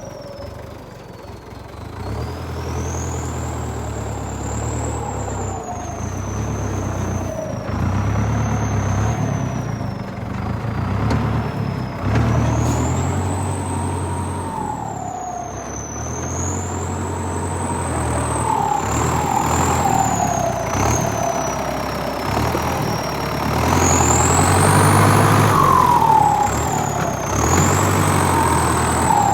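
A motor vehicle driving, its engine rumble and a high-pitched whine rising and falling together as it speeds up and slows down.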